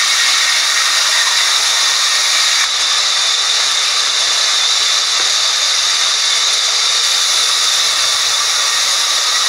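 Sawmill band saw running steadily while cutting a plank of red wood fed through its blade, a loud, even, high-pitched rushing noise.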